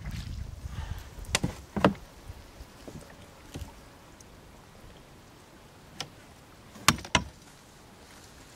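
Paddling sounds fade out in the first second. Then come a handful of separate sharp knocks and clacks, the loudest about seven seconds in, as a paddle and dead branches knock against a small boat pulled in to a snag.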